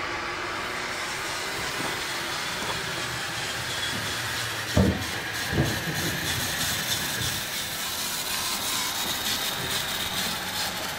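Radio-controlled model trucks running on an indoor course: a steady hiss and whir, with two low thumps about halfway through.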